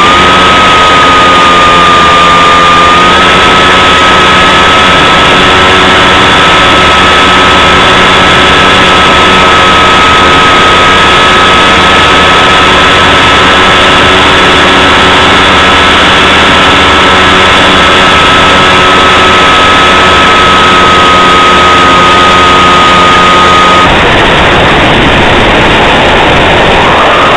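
Model aircraft engine and propeller heard from a camera on board, running at steady high power: a loud, even high-pitched drone with a lower hum beneath, stepping up slightly in pitch about three seconds in. Near the end the steady drone gives way to a rougher, noisier engine sound, and its pitch climbs again at the very end.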